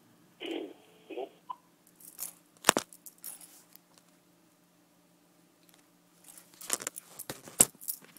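Scattered knocks and sharp clicks of handling noise. There is a muffled bump about half a second in, a loud click near three seconds, a quiet stretch, then a cluster of clicks near the end.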